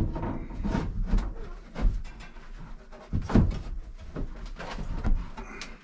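Irregular knocks and thuds of material being handled and pressed against a wooden plank wall, with a heavier thump about three seconds in.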